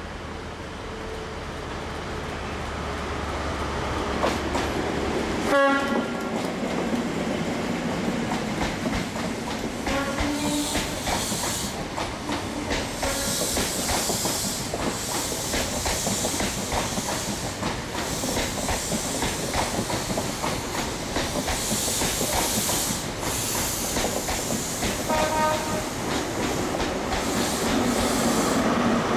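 An InterCity 125 (HST) pulling out and passing close by. The Class 43 power car's diesel engine runs under load, and the coaches' wheels clatter over rail joints from about ten seconds in. Short horn toots come about six, ten and twenty-five seconds in, and the rear power car's engine grows louder near the end.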